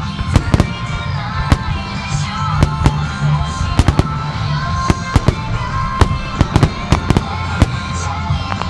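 Aerial firework shells bursting in rapid succession, about twenty sharp bangs coming singly and in quick clusters, over music.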